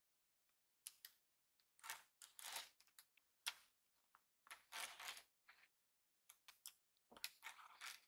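Small magnetic balls clicking together and scraping against each other as they are handled, in a series of short bursts with silent gaps between.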